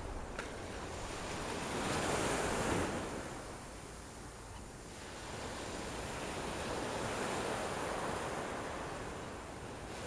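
Small surf washing up a sandy beach, swelling twice: about two seconds in and again around seven seconds.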